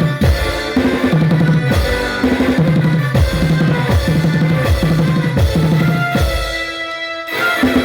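Tasha (tassa) drum music with a deep bass kick that drops in pitch on each beat, about every two-thirds of a second, over snare and steady pitched backing. The beat falls away for about a second near the end, then comes back.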